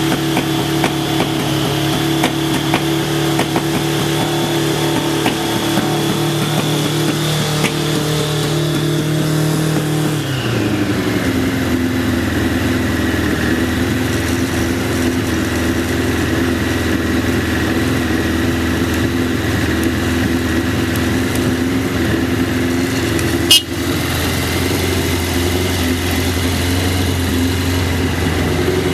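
Suzuki GSF1200's air/oil-cooled inline-four engine running steadily at a raised speed, then dropping about a third of the way in and settling into an even idle. A single sharp click sounds near the end. The seller describes the idle as stable with no abnormal noise.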